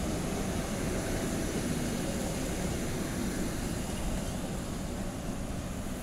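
Passenger train rolling away along the track: a steady low rumble of coaches on the rails, easing slightly near the end as the last coach recedes.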